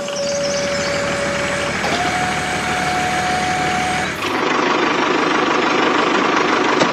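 Truck engine running with a steady whine that steps up in pitch about two seconds in; about four seconds in it gives way to a different engine sound with a higher hum.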